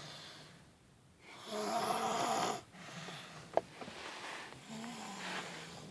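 Snoring: a loud snore about a second and a half in, then softer breaths and a weaker snore near the end. A single short click comes a little past halfway.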